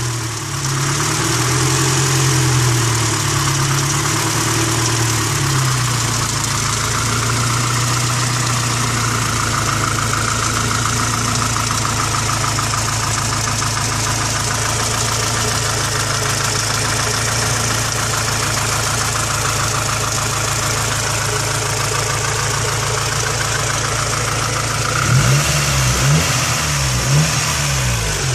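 Honda B16A2 1.6-litre four-cylinder engine, rebuilt with 81.5 mm pistons, idling with a wavering pitch at first, then revved briefly three times near the end. The owner is showing a knocking, rattling noise from the rebuilt engine.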